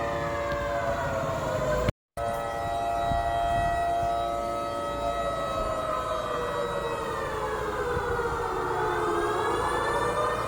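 Civil-defense-style curfew siren sounding the lockdown curfew: a wail of several tones together that falls in pitch, holds steady for a few seconds, sinks slowly and rises again near the end. The sound drops out completely for a moment about two seconds in.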